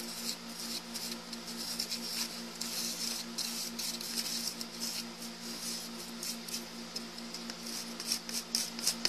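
A mixing tool scraping and stirring a thick baking-soda-and-lotion paste in a plastic container, in a run of short scrapes that grow quicker and more even near the end, over a steady low hum.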